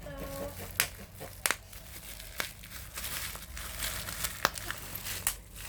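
Plastic bubble wrap being squeezed by hand: crinkling with about half a dozen sharp pops as single bubbles burst, two of them in quick succession.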